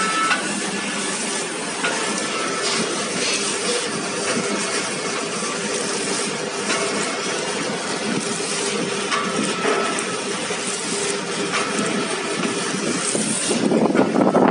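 Packaging machine running: a steady mechanical hiss with a low hum and a few faint knocks, swelling louder near the end.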